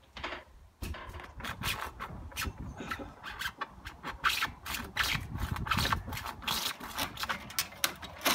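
Hand saw cutting through the wooden edge of a shed roof, in quick back-and-forth strokes that start about a second in.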